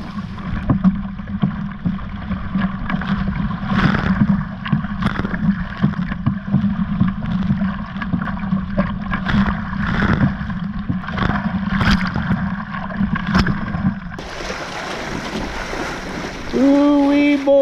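Hobie Adventure Island sailing trimaran kayak under sail in strong wind and chop: wind buffets the microphone while waves slap and splash irregularly against the hull. The water noise turns brighter and hissier about three-quarters of the way through, and a short voice sounds near the end.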